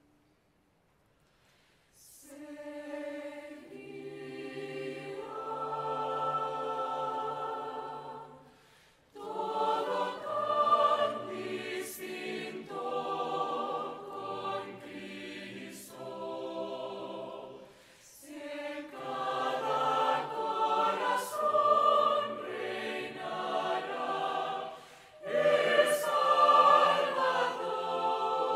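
Mixed choir of men's and women's voices singing, starting about two seconds in, in long phrases with short breaks between them.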